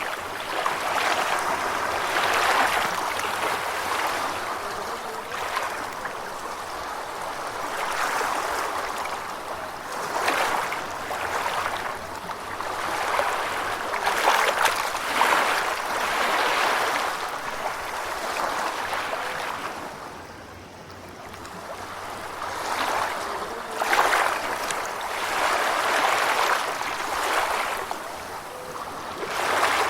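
Gentle ocean waves washing and lapping, swelling and fading every couple of seconds, with a short lull about two-thirds of the way through.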